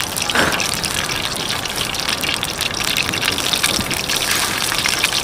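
Banana-stem batter frying in a pan over a wood fire: a steady sizzling hiss with many small crackles and pops.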